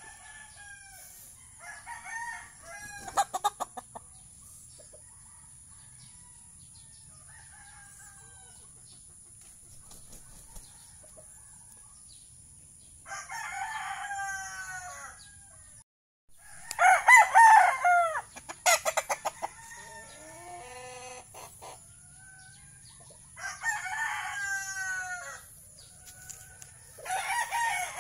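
Young gamecocks (stags) crowing several times over the yard, each crow lasting a second or two, the loudest about two-thirds of the way through, with clucking between the crows. Twice, a quick run of sharp clicks cuts in.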